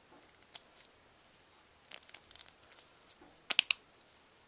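Casio G-Shock resin strap and buckle being fastened on a wrist: light handling rustle with scattered sharp clicks, a single loud click about half a second in and a quick run of louder clicks about three and a half seconds in.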